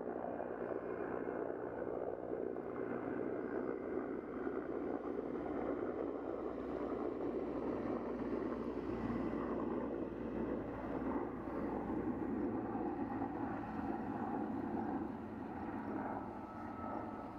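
Erickson S-64 Air-Crane firefighting helicopter flying, its rotors and turbines making a steady drone that eases off slightly near the end.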